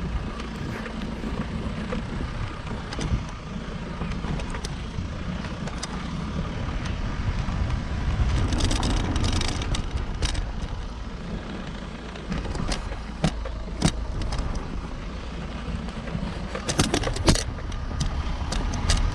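Vehicle driving over a rough, broken mountain road: a steady low rumble with scattered knocks and rattles from the jolting.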